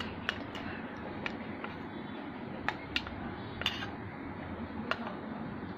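A spoon clinking and scraping against a bowl while stirring colour into slime, with several sharp, irregularly spaced clinks over a low steady hum.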